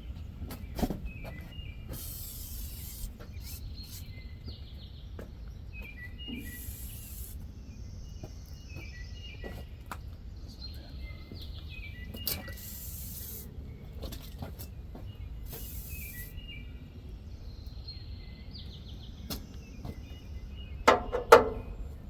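Songbirds singing, repeating short chirping phrases every few seconds over a low outdoor rumble, with a few light clicks and two sharp knocks near the end.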